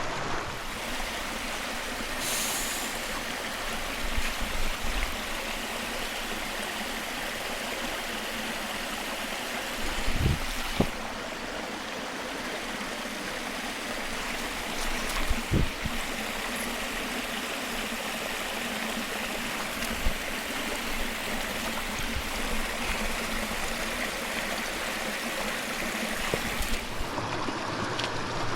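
Small mountain stream running over rocks: a steady rush and trickle of water, with a few faint low knocks or bumps now and then.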